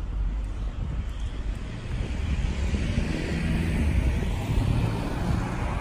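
A vehicle passing by: its noise swells from about two seconds in and eases off near the end, over a low rumble of wind on the microphone.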